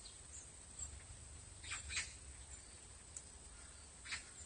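Faint short, high-pitched animal calls: two close together about two seconds in and one more near the end, over a low rumble.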